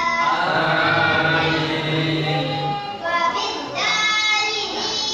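A boy chanting Qur'an recitation into a microphone, in long, melodic, drawn-out phrases.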